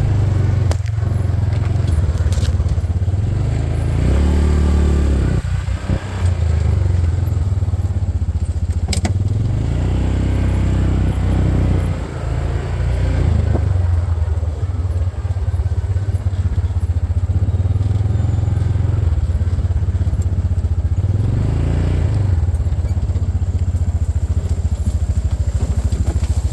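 Side-by-side utility vehicle driven over rough farm ground: a low engine drone that swells and eases several times, with the body and loose parts rattling and clattering.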